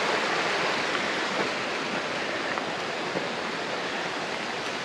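Rushing water of a mountain creek, a steady even hiss that slowly grows fainter.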